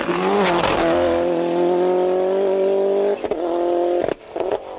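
Toyota Celica GT-Four ST185 rally car's turbocharged 2.0-litre four-cylinder engine held at high revs under full throttle, pitch creeping up. It cuts off about three seconds in as the driver lifts, and a few sharp cracks follow.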